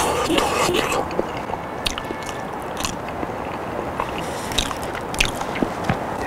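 Close-miked chewing of boiled potato, with wet mouth sounds and a few small clicks, over a steady background hiss.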